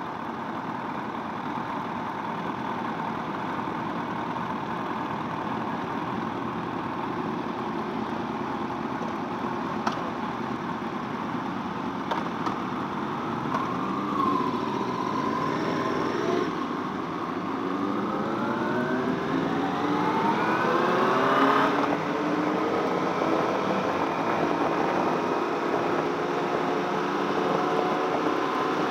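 Yamaha R1/R6 inline-four sportbike engine heard from the rider's seat, mixed with wind noise. It rolls along at low revs at first, then revs up with a rising pitch for several seconds. The pitch drops at a gear change and the engine settles into a steady cruise.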